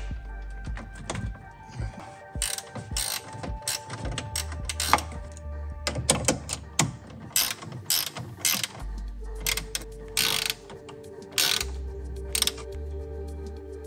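Ratchet wrench clicking in quick runs as bolts on the gray tank valve are tightened, over background music.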